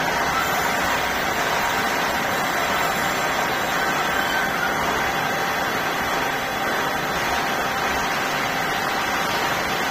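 Plastic sheet extrusion line running: a steady, even machinery noise with a few faint steady tones.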